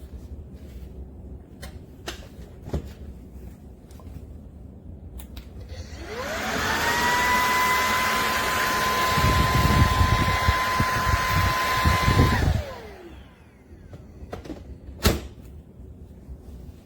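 BISSELL PowerClean cordless stick vacuum switched on about six seconds in. Its motor winds up to a steady high whine with a rush of air, runs about six seconds with low rumbling in the second half, then switches off and winds down. A few clicks and knocks come before and after.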